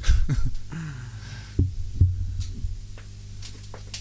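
Two soft, low thumps about half a second apart over a steady low electrical hum, with a few faint light clicks near the end.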